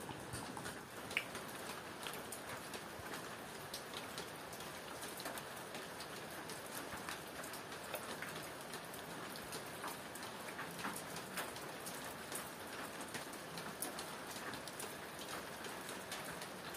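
Steady rain pattering, with many scattered individual drops ticking; a single sharp click about a second in.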